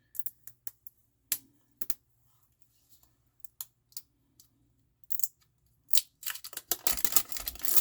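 Sharp plastic clicks and crinkling as the seal and cap of a new bottle of ranch dressing are worked open: scattered single clicks, then a dense crackle of clicks in the last two seconds or so.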